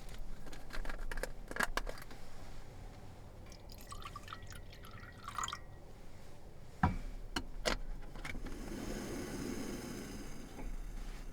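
A drink being poured into a glass, with scattered clicks and knocks from a glass and containers being handled. A hissing pour-like wash comes in the last few seconds.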